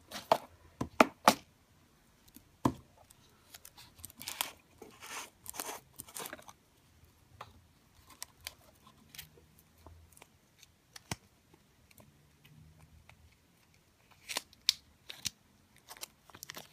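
Handling of small plastic craft containers, a sequin organizer case and a jar of gold glitter: sharp plastic clicks and short rustling scrapes. A quick run of clicks comes in the first second or so, rustling about four to six seconds in, and a few more clicks near the end.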